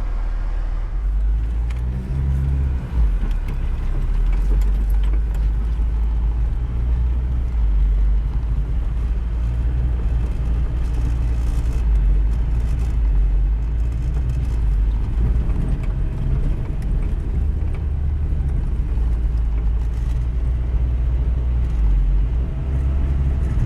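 Car driving, heard from inside the cabin: a steady low rumble of road and engine noise that rises and falls slightly.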